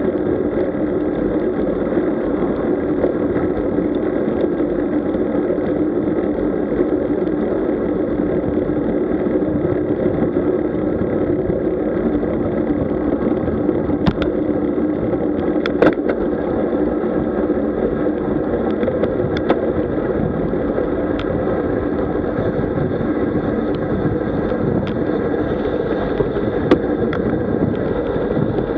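Steady riding noise from a road bike ride: wind and tyre rumble with a constant hum, broken by a few sharp clicks about halfway through and near the end.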